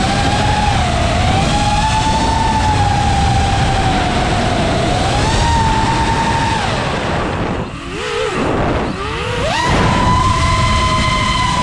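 FPV quadcopter's brushless motors whining, the pitch rising and falling as the throttle changes. About eight seconds in the whine drops away, then climbs sharply back and holds. Wind rushes over the drone-mounted camera's microphone throughout.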